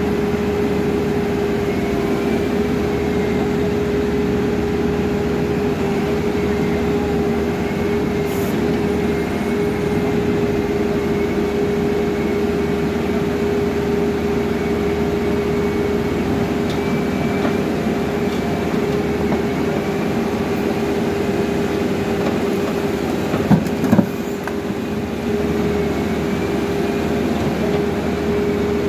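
Caterpillar backhoe loader's diesel engine running steadily with a constant hum, with two short knocks close together about three-quarters of the way through.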